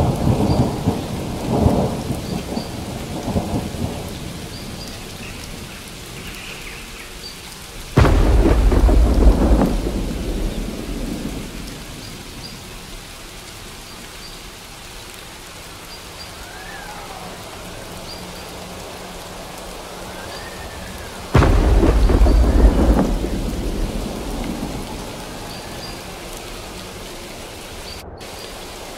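Thunderstorm recording: steady rain with rolling thunder. A rumble fades over the first few seconds, then a sudden thunderclap comes about eight seconds in and another about twenty-one seconds in, each rumbling away over a few seconds.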